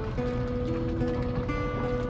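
Background music: sustained melody notes that step from pitch to pitch over a steady low bed.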